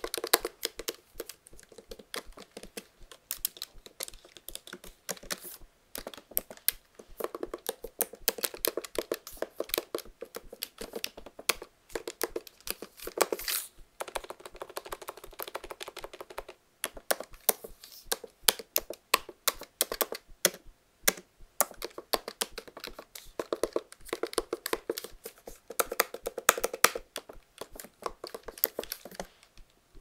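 Typing on a MacBook laptop keyboard: quick runs of clicking keystrokes, broken by short pauses every few seconds.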